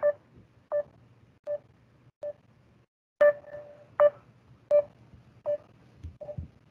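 Facebook Messenger outgoing call tone: short electronic beeps about three-quarters of a second apart, in runs of four with a short pause between runs. It is the call ringing while it waits for the other person to pick up.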